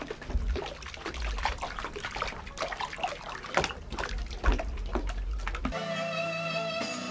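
Water splashing and dripping as a fish is rinsed in the sea, in irregular small splashes over a low rumble. About six seconds in this cuts off abruptly and instrumental music begins.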